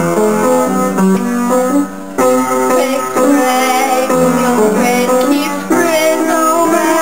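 Instrumental music: a steady run of notes with a plucked-string sound.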